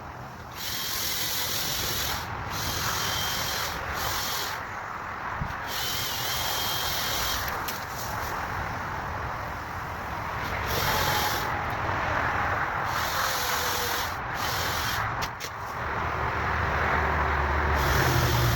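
Makita 16-inch 18V×2 LXT brushless cordless chainsaw cutting wood. Its high motor whine cuts in and out in repeated bursts over a steady rasp of chain in wood, with a low rumble building near the end.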